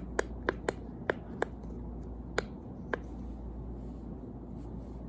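Fidget puzzle pieces being handled, giving about eight sharp little clicks over the first three seconds, then only faint room hiss.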